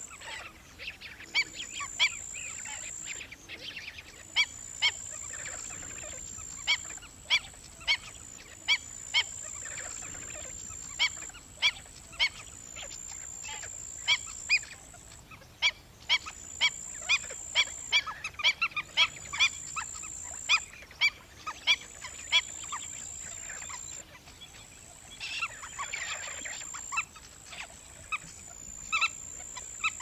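Black-winged stilts calling: short, sharp, yapping notes repeated in irregular runs, at times several a second, with brief pauses between bouts.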